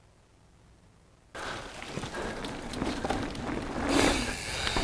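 Mountain bike riding down a dirt forest trail: tyre noise over dirt and leaves starting about a second in and growing louder toward the end.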